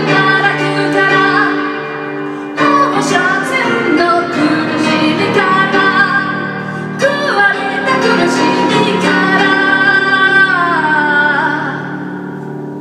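A woman singing while accompanying herself on a grand piano, in three long phrases; the last one glides down in pitch and fades near the end.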